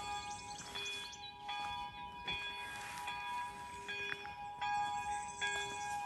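Monastery church bells pealing: several bells struck over and over in quick succession, their tones overlapping and ringing on. Birds chirp faintly in between.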